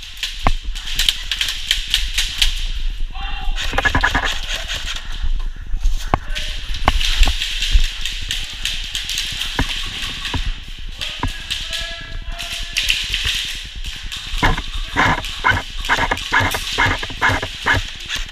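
Airsoft guns shooting in an indoor game: scattered sharp cracks and knocks, with brief voice-like sounds in between. Near the end comes a quick even string of shots, about four a second.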